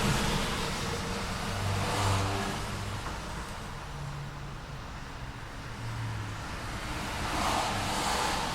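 City street traffic: cars passing with engine hum and tyre noise. The sound swells as a vehicle goes by about two seconds in and again near the end.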